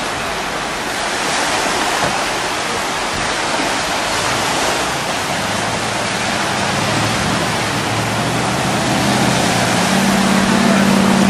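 Steady rushing noise of churned water, with a pickup truck's engine running underneath; its low drone comes in about halfway and grows louder near the end.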